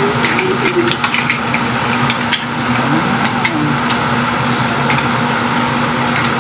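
Spatula stirring mussels and shrimp in a pan, the shells clacking against the pan and each other in scattered clicks, over a steady electrical hum.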